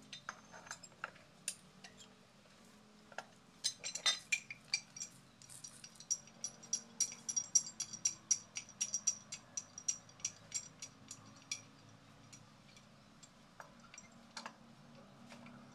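Metal hand tool clicking and clinking on the pipe fittings at the base of a hand water pump: a few scattered clicks, a quick cluster about four seconds in, then an even run of light ringing clicks, about three or four a second, that stops some seconds before the end.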